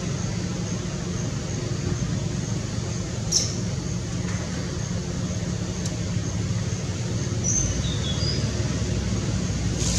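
Steady low rumbling background noise, with a sharp click about three seconds in and a few brief high chirps near the end.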